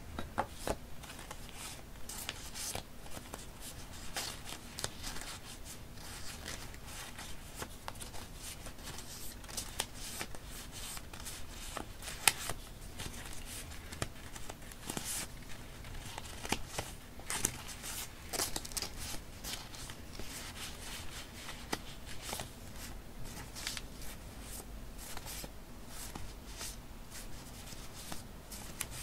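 Paper rustling as fingers sort and fan through a stack of small die-cut paper label memo sheets: a steady run of short rustles and crisp flicks, with a sharper snap about twelve seconds in.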